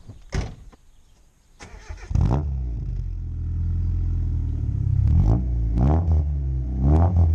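Nissan Bluebird U12 2.0 SGS, fitted with a pod filter, started from cold. The starter cranks briefly and the engine catches about two seconds in, then idles at the exhaust with three short blips of the throttle near the end.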